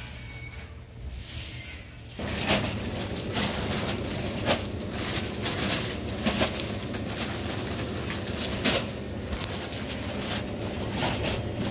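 A hand stirring through a heap of small ivory-coloured rings, which clatter against one another in a continuous rattle with many sharp clicks. It starts about two seconds in and cuts off suddenly.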